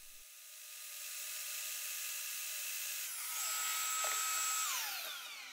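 Plunge-cut track saw running along its guide rail, cutting through a plywood sheet with a steady high whine. Near the end the motor is switched off and the whine falls in pitch as the blade winds down.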